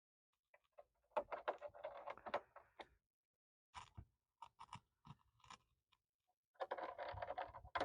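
Plastic back cover of a Lenovo all-in-one PC being worked into place and fastened: a run of scraping and clicking about a second in, a few sharp separate clicks in the middle, and another dense run of clicking and scraping near the end.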